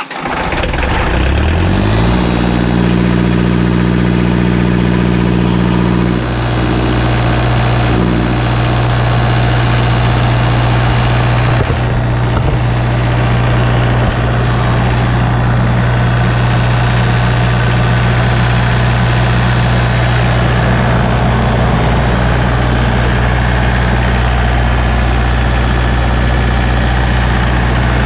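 Kubota 15 kW diesel generator engine catching on a cold start, rising in pitch over about two seconds, then running steady. It was started with a heat gun blowing hot air into the intake because its glow plugs don't work.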